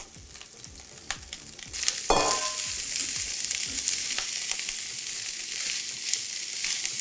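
Shredded carne de sol frying in clarified butter (manteiga de garrafa) in a frying pan, stirred with a spatula: a knock about two seconds in, then a steady sizzle with light scraping clicks.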